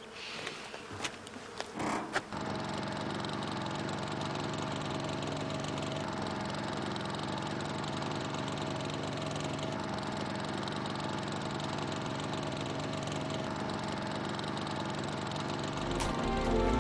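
An engine running steadily, coming in suddenly about two seconds in after a few short knocks.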